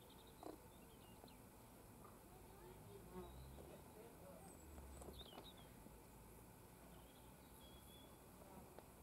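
Near silence: quiet outdoor background with a few faint, short high chirps and a faint low hum.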